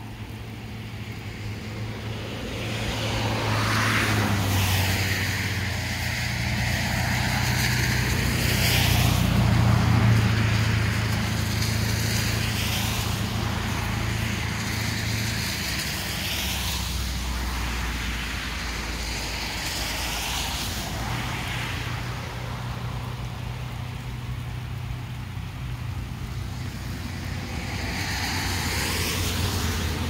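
Motor vehicles passing one after another, each pass a swelling whoosh over a steady low engine hum, loudest about a third of the way in.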